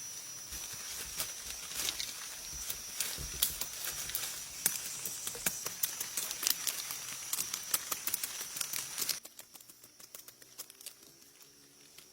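A steady high-pitched insect drone, like crickets, over irregular crackling and rustling like twigs and dry leaves being disturbed. Both stop abruptly about nine seconds in, leaving only a faint background.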